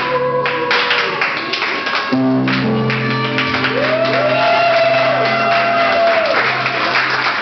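Swing jazz playing loudly for lindy hop dancing, with long held notes and a rhythmic beat; a melody line bends up and back down in pitch about four seconds in.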